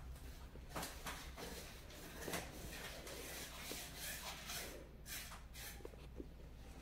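Denim and a felt embroidered patch rustling and scratching under the fingers during hand embroidery, with a needle and thread drawn through the fabric. It comes as a series of short scratchy strokes, about eight over the stretch.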